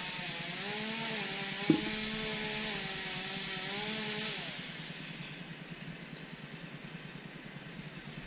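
Chainsaw running up in a tree, its engine pitch dipping and recovering again and again as it cuts, then stopping about four and a half seconds in. A single sharp knock comes a little under two seconds in.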